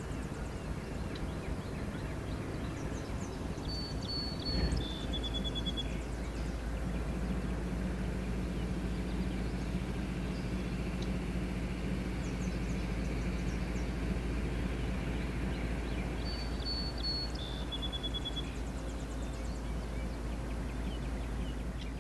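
Steady low outdoor rumble. Twice, about thirteen seconds apart, a bird whistles the same short two-note call, the second note lower than the first.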